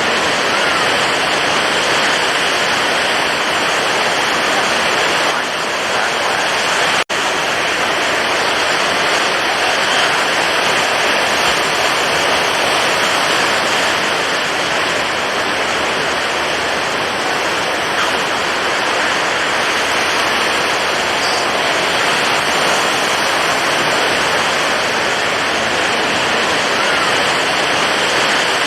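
Stormy ocean surf: a continuous, dense wash of breaking waves with no let-up, cutting out for an instant about seven seconds in.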